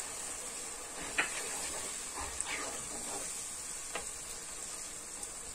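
Beef in a tomato and pepper paste base sizzling gently in a pot while a wooden spoon stirs it, with a couple of light knocks of the spoon against the pot, about a second in and near four seconds.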